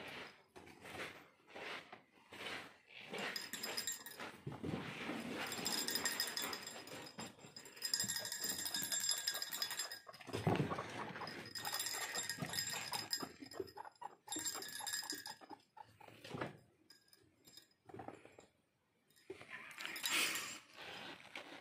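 Small bell on a wooden rodent chew toy jingling in rapid shakes, with clicks of the wood being gnawed and knocked against wire cage bars. The jingling is heaviest from a few seconds in until a pause near the end.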